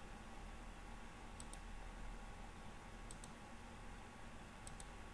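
Computer mouse clicking: faint clicks in close pairs, four times, about a second and a half apart, over a low steady electrical hum.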